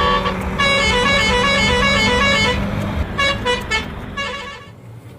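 Horn-and-engine sound effect: a steady hum under a quick run of short horn notes stepping up and down in pitch. The notes break off briefly about halfway through, start again and die away near the end.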